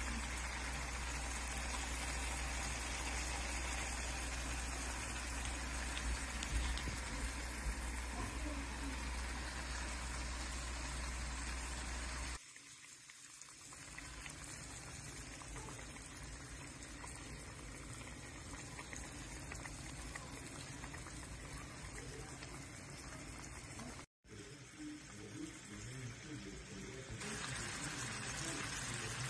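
Coconut-milk curry gravy simmering in a pan with hard-boiled eggs: a steady bubbling, sizzling hiss. A low hum runs under it for the first twelve seconds, then the sound drops abruptly and continues quieter, with a brief cut-out later on.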